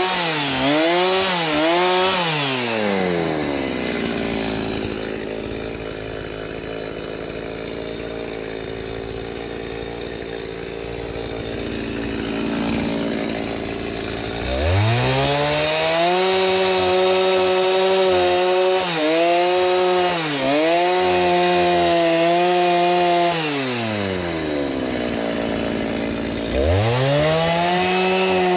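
Chainsaw cutting dry oak firewood logs. It runs at high revs near the start, drops to idle for about ten seconds, then revs up and holds full throttle for about nine seconds with two brief dips as it works through a cut. It falls back to idle and revs up again near the end.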